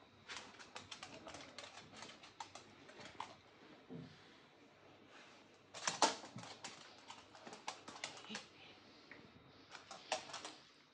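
Faint, irregular clicking and tapping of a Shiba Inu's claws on a hard wood-look floor as the dog moves about, with a louder flurry about six seconds in.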